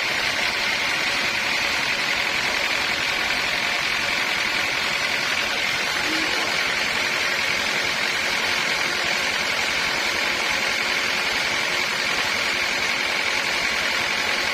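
Sawmill machinery running steadily, an even, unbroken mechanical noise with a hissing edge.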